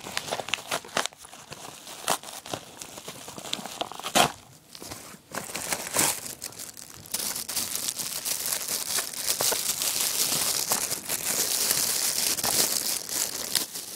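Hands crinkling and tearing open a yellow mail package, with many sharp crackles through the first half and then a longer continuous rustling of the packaging.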